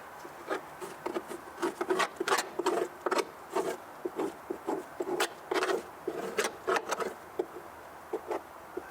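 Irregular scraping and scratching as packed old grass is picked and scraped out of a lawnmower deck with a chisel. The strokes come in quick uneven runs, busiest in the middle.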